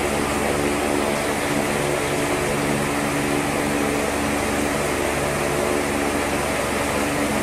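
Steady mechanical hum of a running motor, several even tones over a soft whir, with no change in pitch or level.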